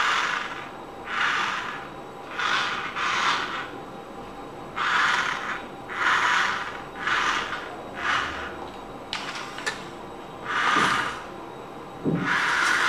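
Small electric gear motors of a toy JCB crane truck whirring in short rasping bursts, about a dozen in all, as the wired remote's controls are pressed and released. There are a few light plastic clicks about nine seconds in.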